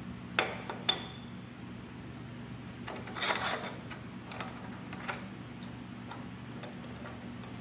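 Steel saddle extension of a Harbor Freight Badland 3-ton floor jack being adjusted by hand to its top hole: a few light metal clinks that ring briefly, and a short sliding scrape a little after three seconds, over a steady low hum.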